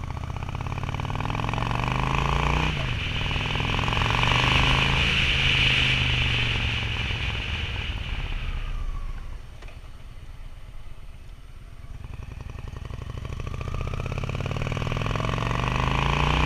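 Honda Shadow VT750's V-twin engine pulling through the gears on a ride, its carburetors freshly cleaned and rebuilt. The engine note rises, drops sharply at a gear change about three seconds in and climbs again. It then eases off, runs quieter for a few seconds and rises steadily again near the end.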